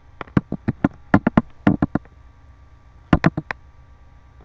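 A quick series of sharp taps or knocks: about a dozen in rapid runs over the first two seconds, then four more just after three seconds in.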